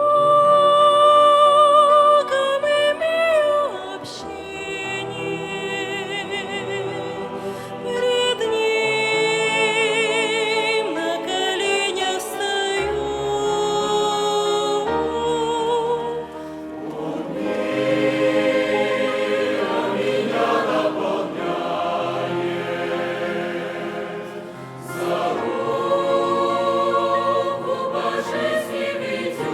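Youth choir singing a hymn in Russian, holding long notes with vibrato over a low sustained accompaniment; it is loudest in the opening two seconds.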